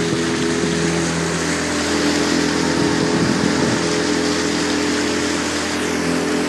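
A small boat's motor running steadily under way, its even hum carried over the rush of water and wind.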